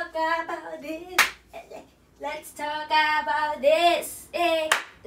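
A woman singing to herself, with a few held notes in the middle, and three sharp hand claps: one at the start, one about a second in and one near the end.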